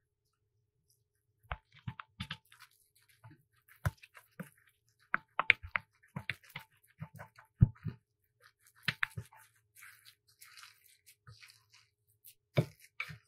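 Wooden spatula stirring and mashing a crumbled tofu and diced vegetable mixture in a glass bowl: irregular knocks and clicks of the spatula against the glass, with soft squishing and a few seconds of scraping in the second half.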